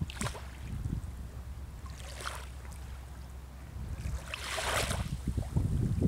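Wind rumbling on the microphone over lapping open water, with a few brief splashing swishes, the longest about four seconds in.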